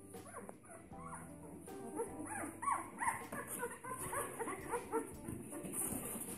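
A litter of two-week-old Bernese mountain dog puppies whining and squeaking together, many short high cries overlapping and thickest from about two seconds in. They are crying for their absent mother. Background music plays under it.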